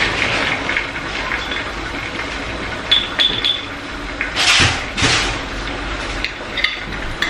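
A small metal spoon clinking against a glass spice jar while scooping coriander powder, over the steady sizzle of curry gravy cooking in a wok. Two louder hissing bursts come about four and a half and five seconds in.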